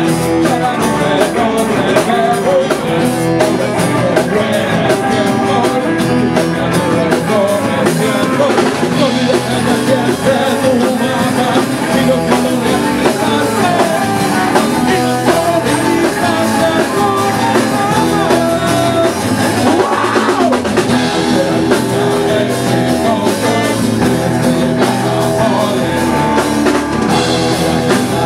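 A small rock band playing live: drum kit, bass and electric guitar, with a man singing into a microphone and strumming an acoustic guitar.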